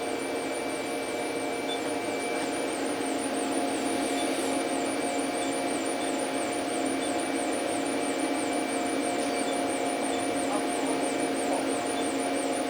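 Steady whir of running machinery, a constant hum with several fixed tones and a faint high warbling whine, holding even without starting or stopping.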